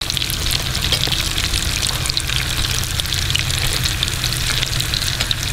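Cornmeal-battered rattlesnake meat frying in hot oil in a cast iron skillet: steady sizzling with constant fine crackling, over a steady low hum.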